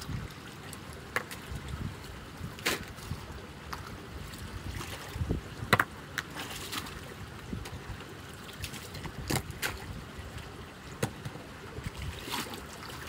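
Shallow muddy floodwater rushing through a concrete drain channel, with several sharp splashes and sloshes as rubber boots and gloved hands move in the water.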